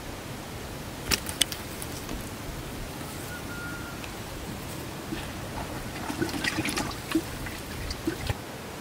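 Water splashing and sloshing with sharp clicks and knocks as a caught fish is handled into a water-filled collapsible fishing bucket. A few clicks come about a second in, and a busier patch of splashing and clicks comes over the last few seconds, over a steady background hiss.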